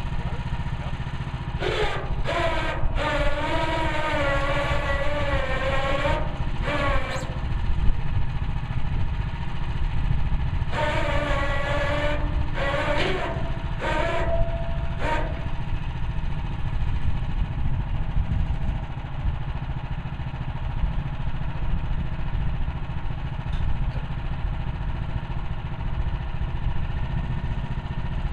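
Woodland Mills HM130 Max portable bandsaw sawmill running steadily on its gas engine. Twice, for about five seconds each, a wavering pitched whine rises over the engine sound.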